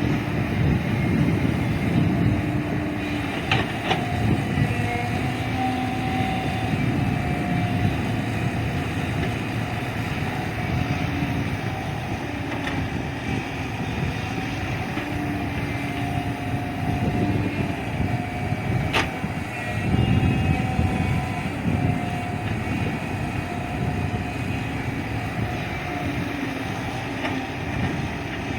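Diesel engine of a JCB 3DX backhoe loader running while it works, its pitch stepping up and down as the revs change. Two sharp clanks stand out, the louder one about two-thirds of the way through.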